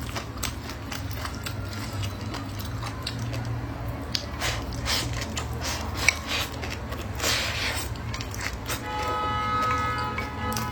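Eating sounds: scattered short clicks of utensils against dishes and mouth noises, with a longer hissing smear a little past seven seconds, over a steady low hum. Near the end, music with steady held notes comes in.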